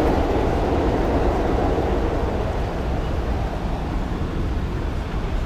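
Loud street traffic noise with a deep engine rumble. A louder vehicle sound fades over the first two seconds, leaving a steady rumble.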